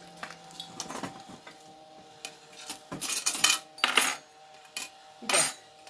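Metal clinking and clattering of a wire fish-grilling basket being handled over a metal serving platter and tongs, in a string of short rattles that are loudest about three to four seconds in and again near the end.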